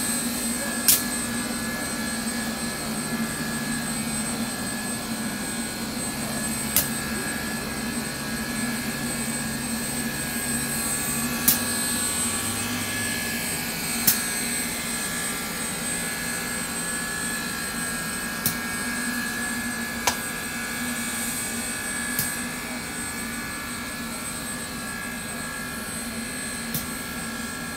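Steam locomotive No. 148, built by the American Locomotive Company in 1920, standing under steam: a steady hiss and whine over a low hum, broken by a sharp click every few seconds.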